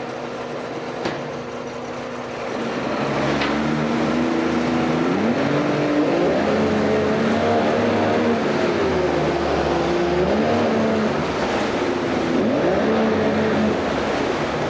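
1995 Mercury 60 hp Bigfoot three-cylinder two-stroke outboard running in a test tank. It idles steadily, then a couple of seconds in it is revved up in steps and eased back down and up again several times, and runs out cleanly.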